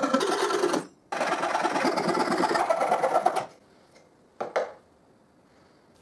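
Coping saw cutting through plywood with quick strokes, with a short break under a second in, until the cut ends about three and a half seconds in. Then a couple of light knocks as the cut-out wooden piece is handled.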